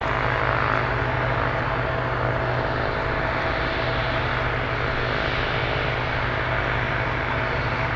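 Embraer E175's twin GE CF34 turbofan engines running steadily at taxi power: a continuous rush with held steady tones in it.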